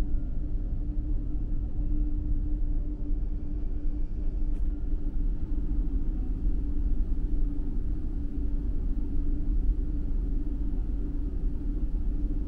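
Steady low rumble with a constant drone from the engines of the ferry Yukari, heard inside a passenger lounge.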